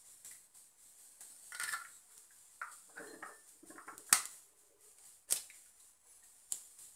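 Raw eggs being cracked on the rim of a glass bowl: a few sharp taps of shell on glass, the loudest about four seconds in, with soft crackling of shell being pulled apart in between.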